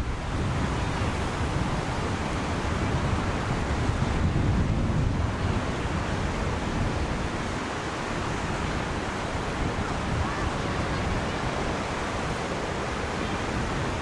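Mediterranean surf breaking and washing up a sandy beach: a steady rush of waves, swelling a little about four seconds in.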